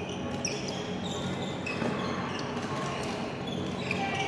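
Badminton rally: a few sharp racket hits on the shuttlecock and short, high squeaks of court shoes on the court mat.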